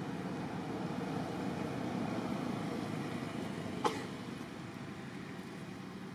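Steady outdoor background noise, an even rumble and hiss, with one sharp click a little under four seconds in.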